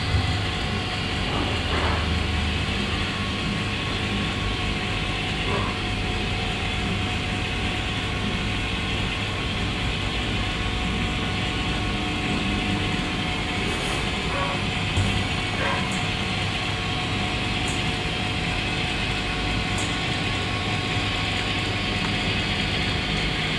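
Model B class diesel locomotive hauling a goods train along the track: a steady mechanical running sound, with a few light clicks in the second half.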